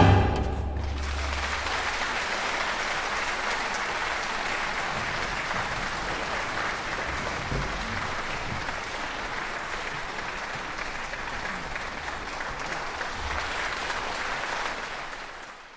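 Concert-hall audience applauding steadily as the orchestra's last low note dies away in the first second or so; the applause fades out near the end.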